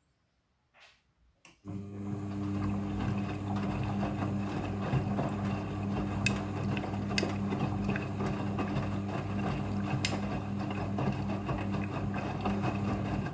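Front-loading washing machine running in its rinse cycle: a steady motor hum starts suddenly about two seconds in, with a few light clicks over it, and dies away at the end.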